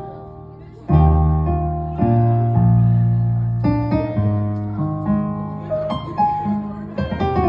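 Keyboard playing slow, sustained chords over deep bass notes. After a brief fading lull, a new chord is struck about a second in, then roughly once a second after that.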